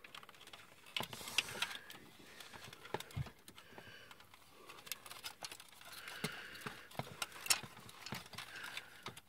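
Hard plastic parts of a DX Grandbird transforming robot toy being handled and fitted together, giving irregular small clicks and knocks.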